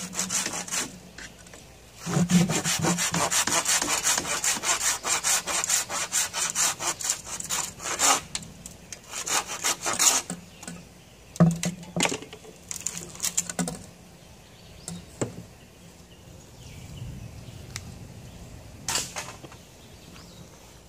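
Hand saw cutting through a bamboo pole: a steady run of quick back-and-forth strokes for about six seconds, then shorter, broken bursts of strokes with pauses between them.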